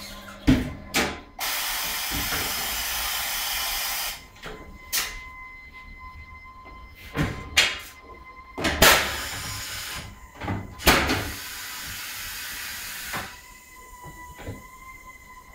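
Tyre-changing machine's pneumatics working: a series of sharp clunks and two long hisses of compressed air, the first about two and a half seconds long near the start, the second, weaker, about two seconds long two-thirds of the way in.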